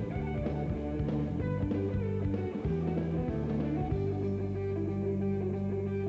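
Instrumental background music led by guitar, with a bass line that settles into longer held notes about four seconds in.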